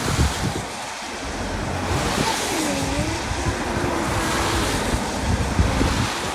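Floodwater rushing and gurgling down a cleared storm drain, a steady wash of water noise, with wind buffeting the microphone in low thumps.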